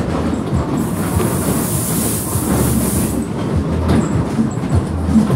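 Fairground ghost-train cars rolling on their track: a steady low rumble with irregular clattering knocks, and a hiss for about two seconds near the start.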